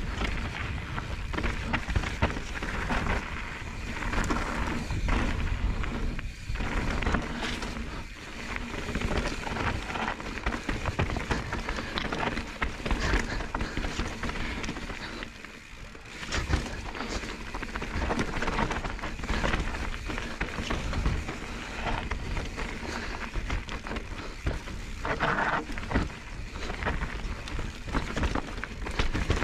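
Mountain bike riding fast downhill over loose gravel and rocky slate: tyres crunching and rattling over stones, with the bike clattering over the rough ground. Wind rumble on the microphone sits underneath.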